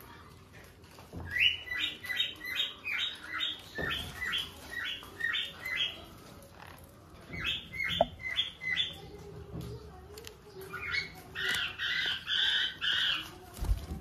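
Pineapple conures, a colour mutation of the green-cheeked conure, giving a run of short, harsh squawking calls about three a second, in three bouts. The last bout has slower, longer calls.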